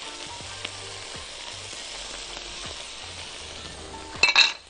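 Diced Egyptian beef sausage, onion and bell peppers sizzling steadily in a hot frying pan with tomato paste just stirred in, and a brief loud knock near the end.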